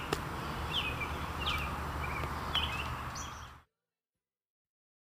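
Outdoor ambience: small birds chirping in short repeated calls over a steady low background noise. It cuts off abruptly to silence about three and a half seconds in.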